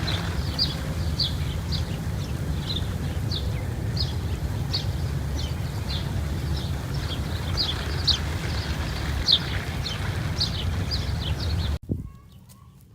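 A bird chirping over and over, short high chirps one or two a second, above a steady low rumble. Both cut off suddenly near the end, leaving it much quieter.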